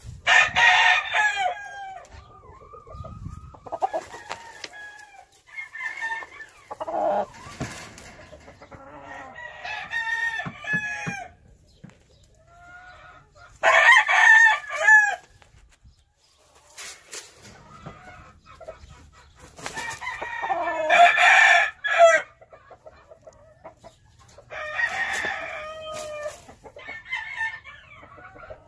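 Roosters crowing about four times, each crow lasting a second or two, with softer clucking calls in between.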